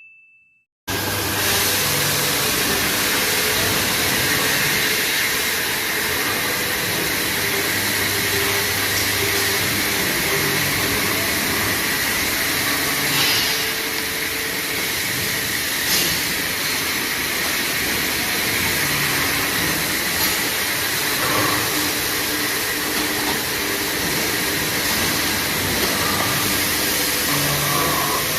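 CNC metal-cutting machine running steadily as it cuts a steel round bar: a continuous hiss with a low hum underneath, starting about a second in, with a few faint clicks.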